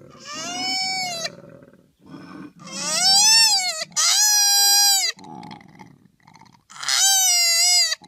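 A koala screaming: four long, high wailing cries, each about a second long and rising then falling, with low grunting noises between them.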